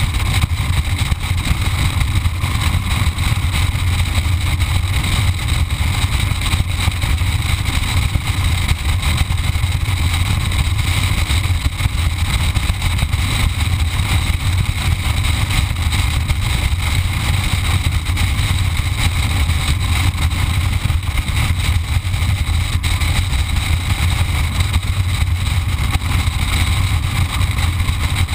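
Motorcycle cruising at a steady speed: an even engine drone mixed with wind rushing over the microphone, with no changes in pitch or loudness.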